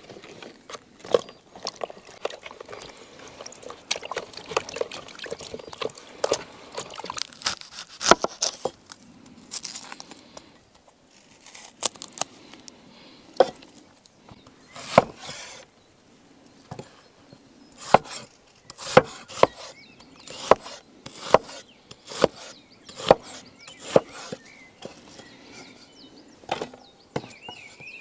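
Dozens of irregular sharp knocks and clicks, like things being handled and set down, busier in the first half.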